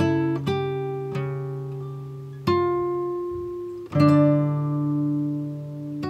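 Background music: an acoustic guitar plays slow chords, each ringing out and fading before the next.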